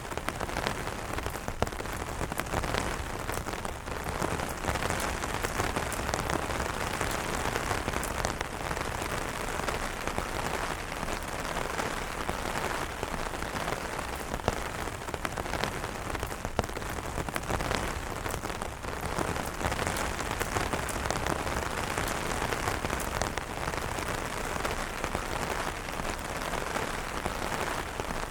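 Steady rain pattering on umbrella fabric, with many separate drop ticks over a constant hiss of rain.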